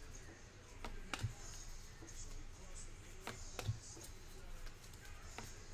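Baseball trading cards being flipped through by hand: faint rustling of card stock, with several irregular sharp clicks and soft taps as cards are snapped to the back of the stack.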